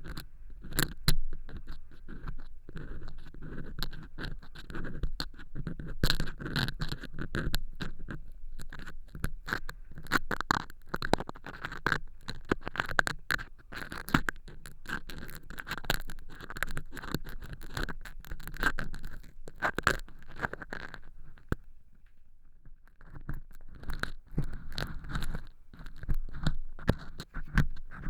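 An earpick scraping and crackling through dry fake earwax made of cork chips inside a transparent silicone ear model: dense, crunchy clicking and scratching. It eases off briefly about three quarters of the way through, then starts again.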